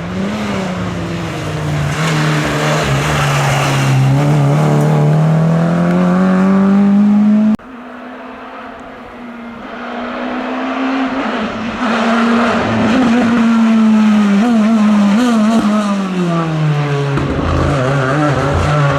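Rally cars on a closed stage at full throttle, engines at high revs. The engine pitch dips and climbs again as each car brakes and powers out. About seven and a half seconds in, the sound cuts off abruptly to a second pass that builds up again.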